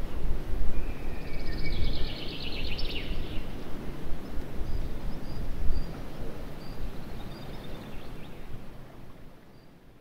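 Canyon ambience: a low, gusty rumble of wind, with a few faint high chirps of small birds, fading out near the end.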